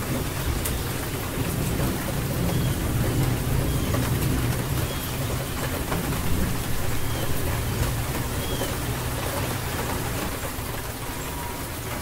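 Steady rain falling, with a low rumble of rolling thunder underneath that swells a couple of seconds in and dies down near the end.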